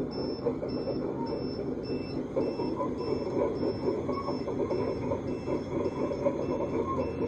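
Reversing alarm of a radio-controlled construction model beeping at about two beeps a second, over the steady grinding of the model's drive gears and tracks as it moves.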